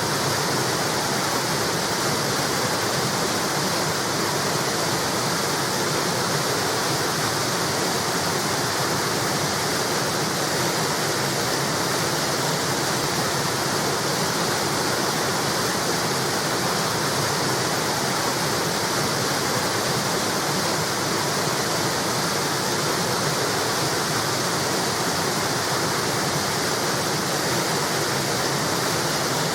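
River water pouring steadily over a small wall, a constant even rush.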